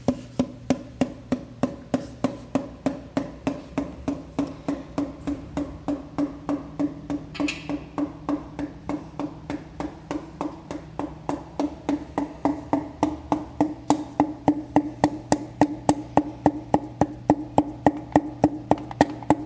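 Steady light taps, about three a second, on the crown of a piston in a 1969 Jaguar E-Type straight-six engine, each tap with a short hollow ring, driving it through a ring compressor into its cylinder bore until it seats. The taps grow louder in the last few seconds.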